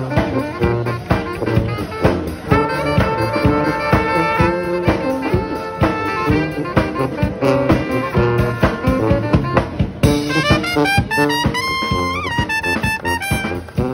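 Brass street band playing live, horns over a steady beat. Long held chords come in the middle, and near the end a high held note bends up and back down.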